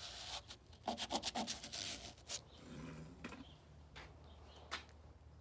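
Faint handling noise: irregular rubbing and scratching with a few scattered clicks and knocks, as the camera is moved and repositioned close to a wooden nightstand surface.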